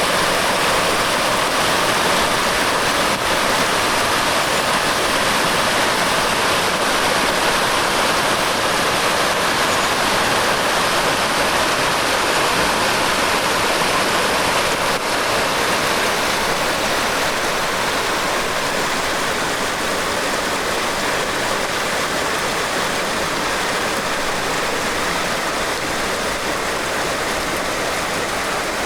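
Rain-swollen stream rushing steadily, with heavy rain falling. About halfway through the rushing eases a little and the rain comes more to the fore.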